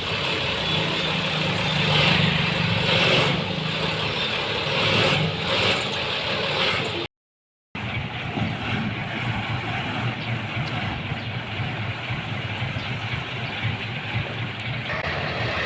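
Engine of a heavy road-works vehicle running steadily. The sound cuts out completely for under a second about seven seconds in, then carries on with a slightly different character.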